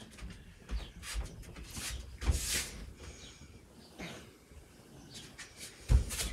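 A dog close by, with scattered knocks and bumps and one short breathy rush about two and a half seconds in.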